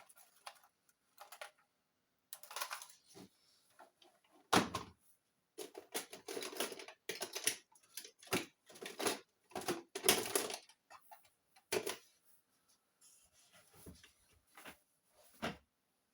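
Hand tools and small hard parts being handled and set down during a laptop teardown: an irregular string of clicks, knocks and short scrapes.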